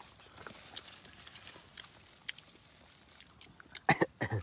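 Steady high-pitched insect chirring with scattered faint clicks, and a short loud vocal sound with a falling pitch near the end.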